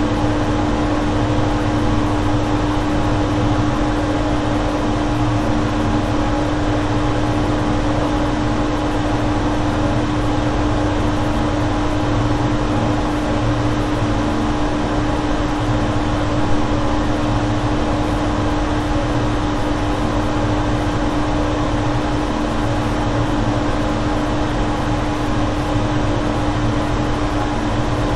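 Boiler room ambience: steady machinery running, a strong low hum with a few fainter higher tones over a deep rumble and an even hiss.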